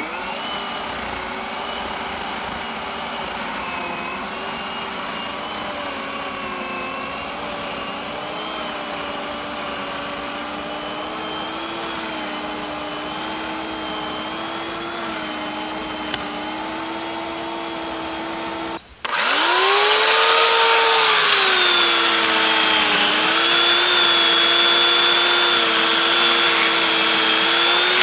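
WORX 15 amp corded electric chainsaw running, its steady motor whine wavering slightly in pitch as it cuts. About two-thirds of the way through, the sound drops out for an instant and comes back louder, its pitch rising and then falling before it settles again.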